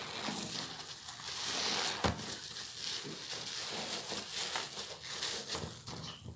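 Soapy sponge squeezed by hand in thick suds: wet squelching and the fizzing crackle of foam bubbles, with one sharper click about two seconds in.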